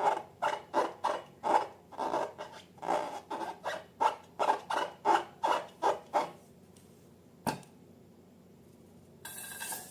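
Slime being squeezed and worked by hand, about two wet squelching strokes a second, stopping about six seconds in. A single sharp click follows a second and a half later, and a brief hiss near the end.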